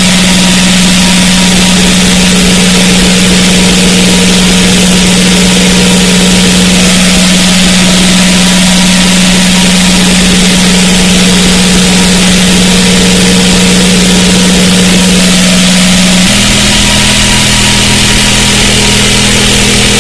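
Harsh, heavily distorted electronic noise track in the speedcore style, very loud, with a steady low buzzing drone that shifts to a lower, thicker pitch about 16 seconds in.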